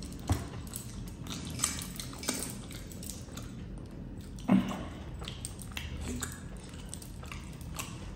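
Close-up eating sounds: chewing a chicken leg piece, with irregular wet mouth clicks and smacks. A single louder low thud comes about four and a half seconds in.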